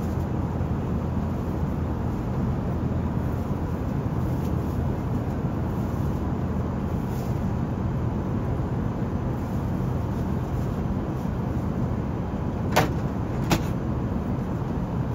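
Airbus A380 cabin noise in flight during the climb: a steady rumble of engines and airflow. Near the end there are two sharp clicks, less than a second apart.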